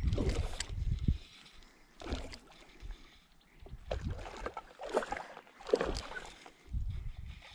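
Water splashing in irregular bursts as a hooked fish thrashes at the surface in the shallows while being played on a fly rod, with a low rumble on the microphone in the first second.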